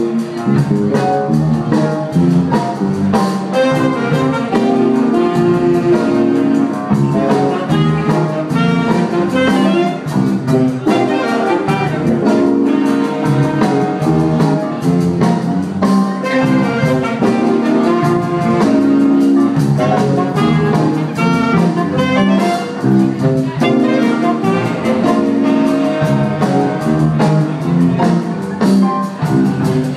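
Live jazz band playing: saxophones lead over electric bass and drums.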